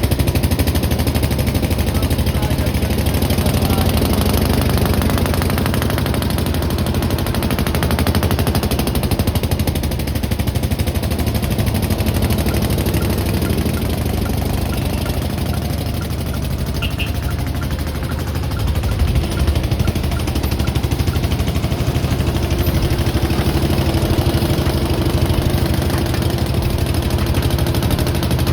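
A motor running steadily with a rapid, even pulse, with a few louder knocks about nineteen seconds in.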